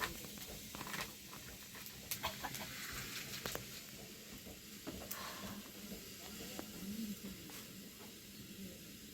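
Chickens clucking faintly, with scattered small clicks and knocks.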